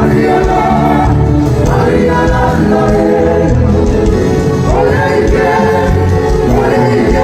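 Gospel worship music: a choir singing with instrumental accompaniment, steady and loud throughout.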